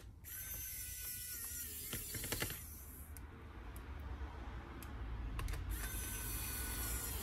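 Pen-style electric precision screwdriver running in two bursts, a whirring motor-and-gear whine as it turns small laptop screws, with a few sharp clicks about two seconds in.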